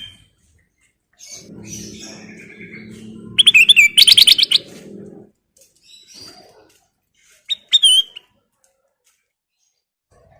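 Kutilang emas bulbul singing in short phrases: a quick run of bright, clear notes about four seconds in and a shorter phrase near eight seconds. A low steady hum runs underneath the first phrase.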